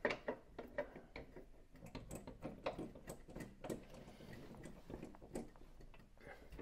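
Faint, irregular small clicks and taps of bolts and washers being handled and started by hand into a metal compressor mounting bracket.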